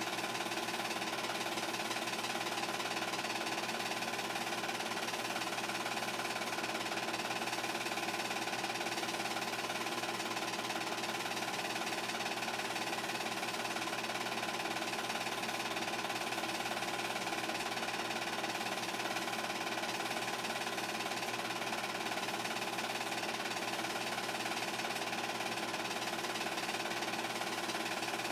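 8mm film projector running: a steady motor whirr with the rapid, even clatter of the film advancing through the gate.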